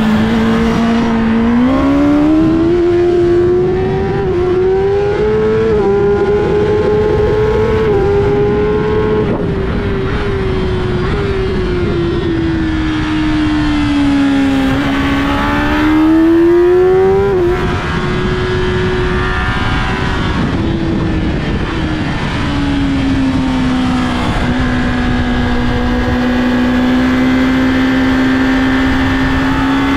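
Kawasaki ZX-10R inline-four engine at full racing speed. It climbs through the gears with quick upshifts in the first few seconds, drops in pitch through the middle as it slows, rises hard again until a shift just past halfway, then holds a steady note before picking up near the end, over heavy wind rush.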